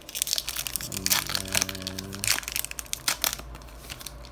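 Foil wrapper of a Panini Contenders basketball card pack crinkling and tearing as it is ripped open by hand, a rapid run of sharp crackles. A low steady hum sounds underneath for over a second, about a second in.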